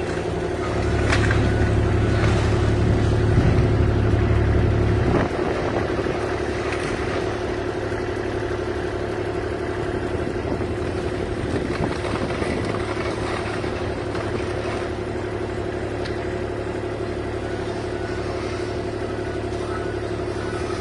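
Excavator engine running steadily under a demolition load, with a constant hum. A deep rumble is heavier for the first few seconds and eases off about five seconds in.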